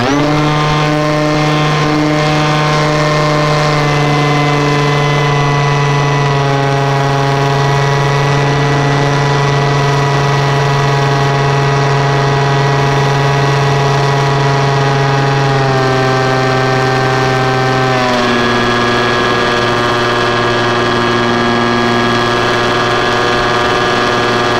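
An RC model airplane's motor, heard close up from a camera mounted on the plane, runs steadily at high power through takeoff and climb: a loud, even drone with many overtones. Its pitch steps down slightly twice, about two-thirds and three-quarters of the way through.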